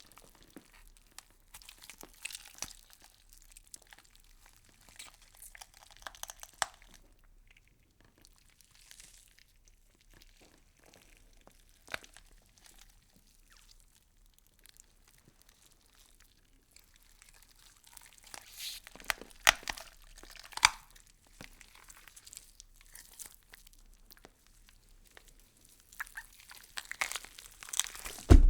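Wet meat twisting sound effect: squelchy crunching, crackling and tearing in several bouts, with sharp cracks around the middle, ending on a heavy thud.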